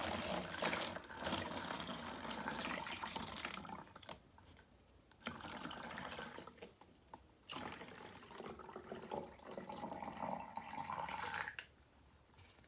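Water poured from a plastic container through a plastic funnel into a plastic water bottle, filling it in three pours with short pauses between them, stopping near the end.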